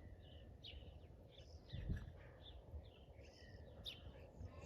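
Faint birdsong: many short chirps and calls from small birds over a low outdoor rumble, with a soft low thump about two seconds in.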